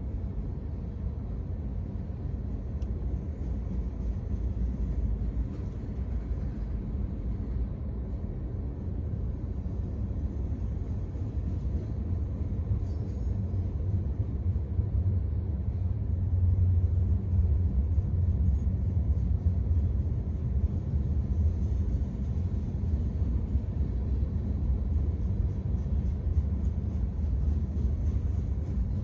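Freight train cars rolling past on the rails: a steady low rumble that grows a little louder about halfway through.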